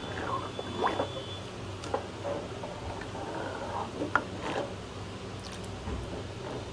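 Thin kadhi liquid gurgling and sloshing in a cooking pot, with a few sharp clinks of a utensil against the pot.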